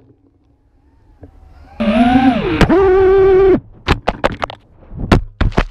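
FPV quadcopter's motors whining loudly, dipping in pitch and then holding a steady pitch for about two seconds before cutting off. This is followed by a quick run of sharp knocks and thuds as the drone crashes through branches to the ground.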